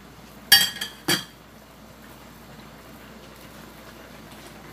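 A metal cooking utensil strikes the steel wok twice, two ringing metallic clanks about half a second apart, then only a low steady background.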